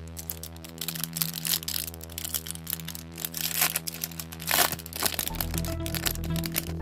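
Background music of steady held notes, over crinkling and clicking as trading cards and a foil pack are handled.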